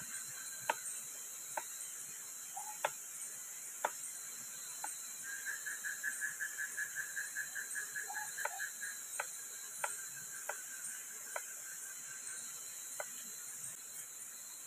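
Knife chopping shallots on a wooden cutting board: single sharp chops roughly once a second, with a pause near the middle. Behind it runs a steady high chorus of night insects, and a short rapid trilling call lasts about two seconds partway through.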